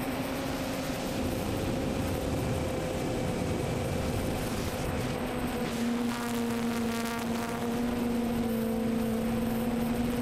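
Quadcopter's electric motors and propellers humming at a steady pitch over heavy wind rush, heard from the onboard camera. The hum sinks into the wind for the first few seconds, then comes back strongly about six seconds in.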